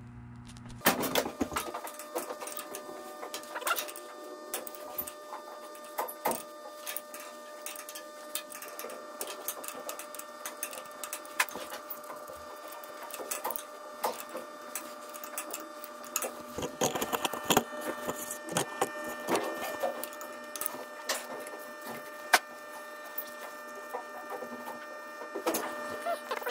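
Irregular metallic clicks and knocks of a wrench and hand tools working stiff, seized valve fittings on a large diesel engine, over a steady mechanical hum.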